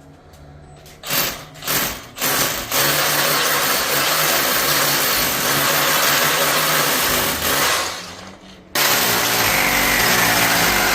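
Small electric power-tool motor run in three quick bursts, then held running for about five seconds, stopping, and starting again near the end.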